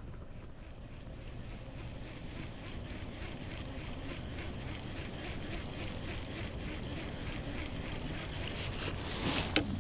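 River current and wind noise around a kayak, with faint evenly spaced ticks throughout and a few sharp clicks near the end.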